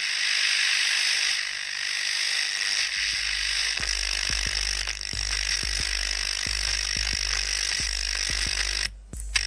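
Radio static: a steady hiss. About three seconds in, irregular crackling clicks and a low hum join it. Near the end it cuts in and out with a thin, high whistle, like a radio being tuned.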